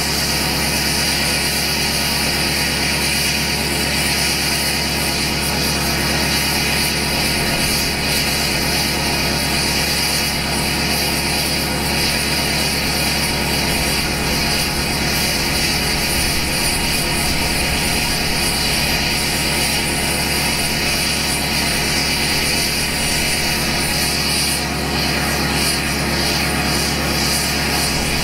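2012 LML Duramax 6.6-litre V8 turbodiesel idling steadily through an unmuffled 5-inch straight pipe with an 8-inch axle-dump tip, in its warm-up after a cold start.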